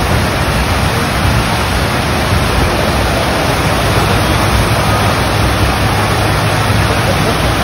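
Steady, loud rush of water on a sheet-wave surf simulator: the pumped sheet of water pouring up the padded slope under a bodyboarder.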